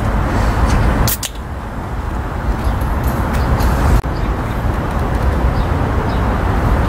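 Steady road traffic noise from busy roads, a continuous low rumble. There is a sharp knock about a second in.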